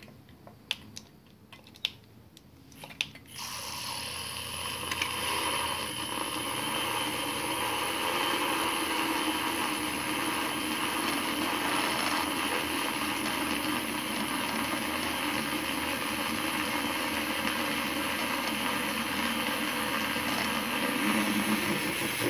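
Black & Decker handheld milk frother whisking warm milk in a glass mug. A few light clicks, then about three seconds in the motor starts and runs steadily as the milk froths, cutting off at the very end.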